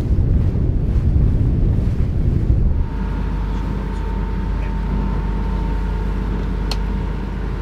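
Wind buffeting the microphone over a low rumble, then, about three seconds in, a steady low drone with a faint even whine takes over: a sailing yacht's big inboard diesel running while motoring. One sharp click near the end.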